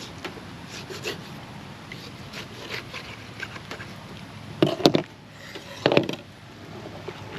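Knife cutting and scraping through a flathead catfish's skin as the fish is cleaned, short rasping strokes with small clicks. Two louder knocks, about five and six seconds in, stand out from the scraping.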